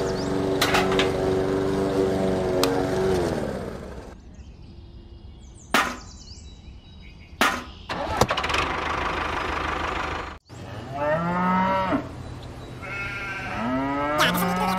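A steady motor-like hum that slides down in pitch and stops about three seconds in, then a few sharp knocks. Near the end, a cow moos twice.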